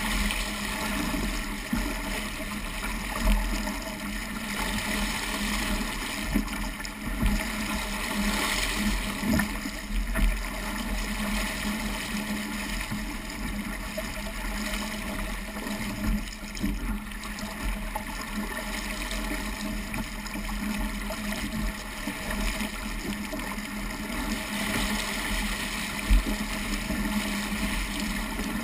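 Water rushing and splashing along the hull of a small Sabot sailing dinghy moving briskly through choppy water, with wind buffeting the microphone. A few short, sharp thumps stand out along the way.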